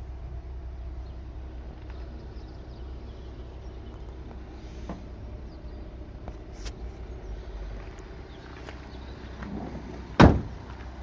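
Van's sliding side door running along its track and ending in a single loud bang about ten seconds in, over a steady low rumble.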